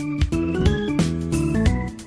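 Background music: a keyboard or organ-toned melody over a steady beat.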